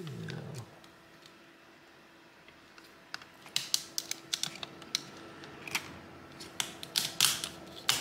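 Metal shield over a laptop's M.2 SSD being pressed into place by fingertips: a run of sharp, irregular clicks and snaps as its clips seat, starting about three seconds in.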